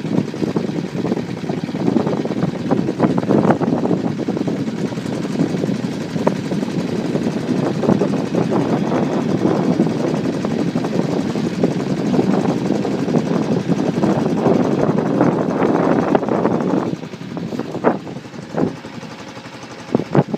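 Boat's outboard motor running steadily, the level dropping about 17 seconds in as it eases off, followed by a few short knocks.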